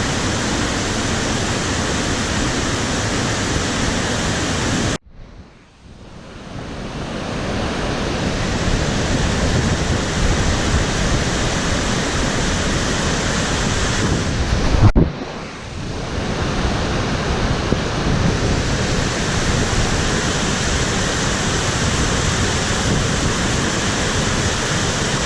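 Steady, loud rushing of floodwater. It cuts out abruptly about five seconds in and builds back up over a couple of seconds, with another short break about fifteen seconds in.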